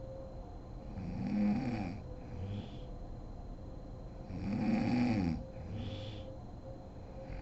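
Sleeping woman snoring: two loud rasping snores about three seconds apart, each followed by a shorter, softer breath.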